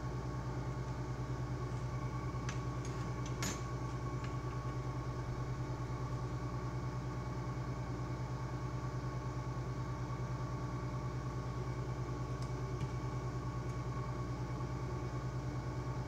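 Steady low hum of a small electric motor or fan running on the repair bench, with a few light clicks about three seconds in.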